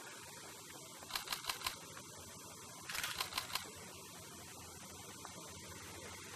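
Male Indian peafowl rattling its raised display train, giving two short bursts of quick dry clicks, about a second in and again about three seconds in.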